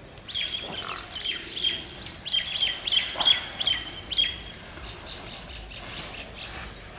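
A bird calling outdoors: a run of short, sharp, high chirps, about three a second, stopping about four seconds in.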